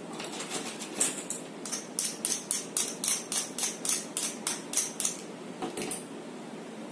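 A quick run of short scratchy strokes, about three to four a second, lasting around five seconds.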